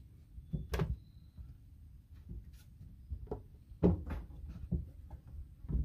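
A few scattered knocks and clicks on a wooden boat deck as a caught fish is handled, the loudest a little under a second in and again about four seconds in, over a low rumble.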